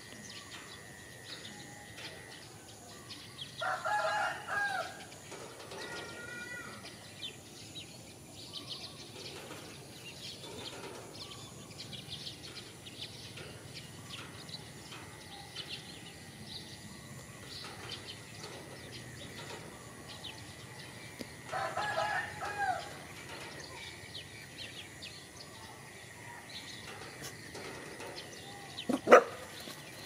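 A rooster crowing twice, each crow about a second long, the second coming some eighteen seconds after the first, with faint bird chirps throughout. A short, loud, sharp sound comes near the end.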